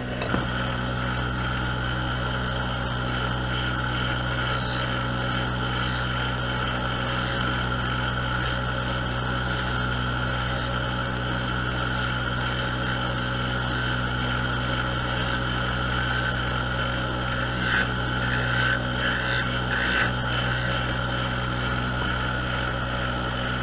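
Small wood lathe running steadily, its electric motor and spindle humming as it turns a short wooden workpiece. A few brief, louder noisy sounds come about three quarters of the way through.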